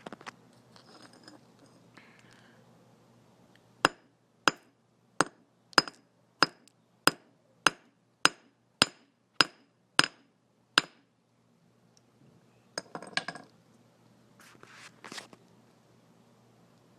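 A hammer striking a small AG10 button cell battery about a dozen times, evenly, a little under twice a second, each blow sharp with a short metallic ring. Two brief bursts of handling noise follow.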